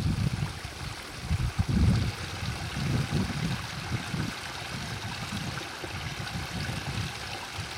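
Steady trickling and splashing of water from a small floating pond fountain, with irregular low rumbles that are loudest in the first two seconds.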